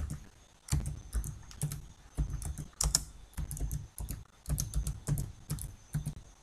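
Computer keyboard typing: an uneven run of quick key clicks with short pauses as a word is typed.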